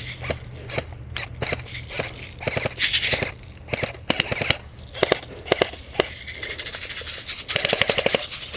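Airsoft guns firing: a fast run of sharp clicking shots near the end, with scattered single clicks and knocks before it.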